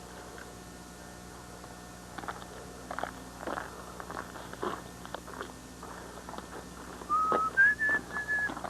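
A few short whistled notes near the end, stepping up in pitch and then back down, over scattered light clicks and taps.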